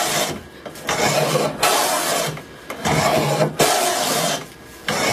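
Hand plane pushed along a wooden frame piece in repeated strokes, each a shaving cut lasting under a second with short pauses between. The stock is being planed flat and true by hand.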